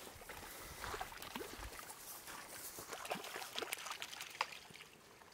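A hooked trout splashing at the surface of shallow water as it is drawn to the landing net: a run of small, irregular splashes.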